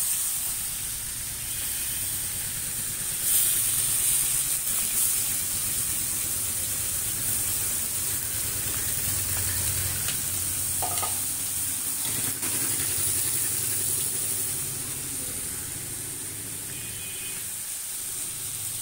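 Pieces of hilsa fish frying in mustard oil in an aluminium karahi, with a steady sizzle. A few short clicks are heard, including one about three seconds in and two more around eleven to twelve seconds.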